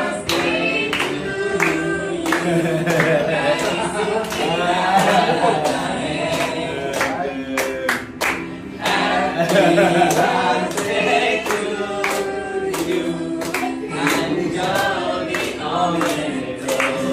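A group of people singing a birthday song together while clapping along in time.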